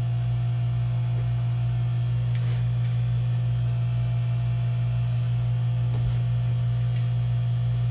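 Steady low electrical hum, unchanging throughout, with a few faint light knocks.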